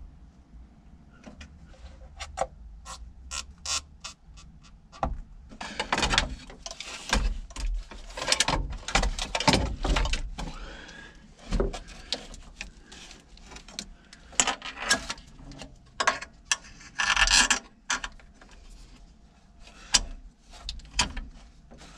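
Hand-tool and parts work on a truck engine. A run of sharp metallic clicks comes first, then irregular bursts of scraping, rubbing and clattering as parts are handled.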